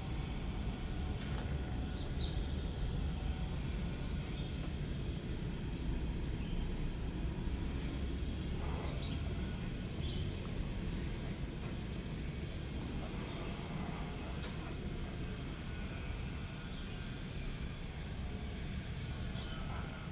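Short, high bird chirps every few seconds over a steady low rumble of outdoor background noise.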